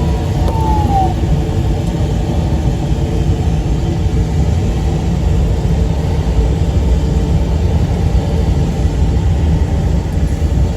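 Steady airflow rushing past a LAK-17 sailplane's cockpit in flight. An audio variometer tone slides down in pitch and stops about a second in, as the climb rate drops.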